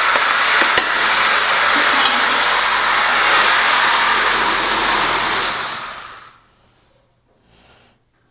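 Ridgid power pipe threader running steadily while threading 2-inch gas pipe, then switched off about six seconds in and winding down to a stop.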